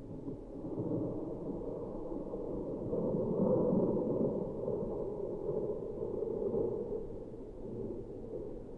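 A long, low rumble of thunder that swells for about three seconds and then slowly dies away.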